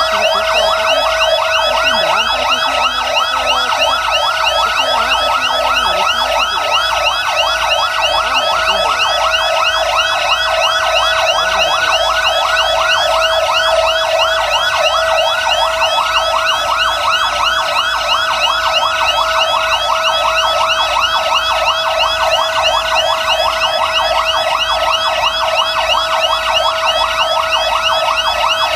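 Several fire truck sirens sounding together, loud and continuous: a fast, repeating yelp layered over a steady held tone.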